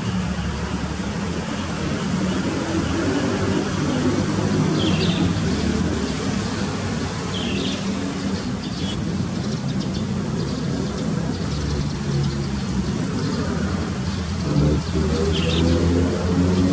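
Steady low rumble of vehicle traffic, with three short bird chirps spaced through it.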